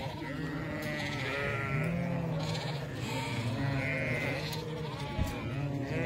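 A large mob of sheep bleating, many calls overlapping continuously at different pitches, with a brief knock about five seconds in.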